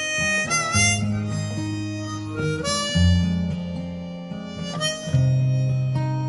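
Music: a harmonica playing a solo with bent notes over strummed guitar chords.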